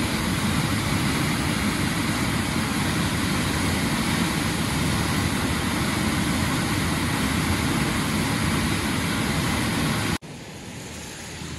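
Flooded Bagmati River pouring over a weir into churning rapids: a loud, steady rush of water. It cuts off abruptly about ten seconds in, giving way to a quieter, even rush.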